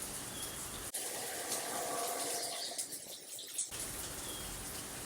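Rainforest ambience: a steady hiss with a few faint, short bird chirps. The sound changes abruptly between about one second in and near four seconds, where the low rumble drops out.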